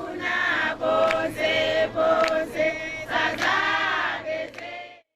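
A group of voices singing together, choir-style, in sustained phrases; the singing cuts off suddenly near the end.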